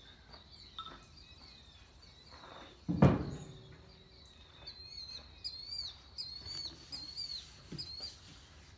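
One heavy thump about three seconds in, then a songbird chirping a short hooked note over and over, about twice a second, through the last few seconds.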